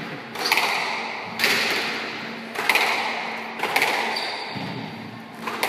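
Squash ball being struck by rackets and hitting the court walls during a rally: sharp cracks about once a second, each ringing briefly in the enclosed court, with a longer gap before the last one.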